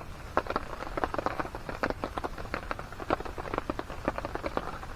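Light rain after a downpour has eased: irregular raindrops tapping and dripping, several a second, over a soft hiss.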